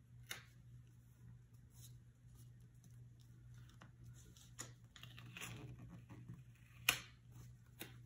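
Paper stickers being handled on a planner page: small scattered taps and clicks, a papery rustle about five seconds in as a sticker is worked loose with the tip of a craft knife, and one sharp click near the end. A faint steady low hum lies underneath.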